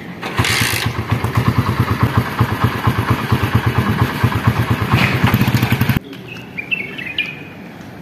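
Small motorcycle engine starting and running with a fast, even pulsing beat, stopping abruptly about six seconds in. Birds then chirp a few times near the end.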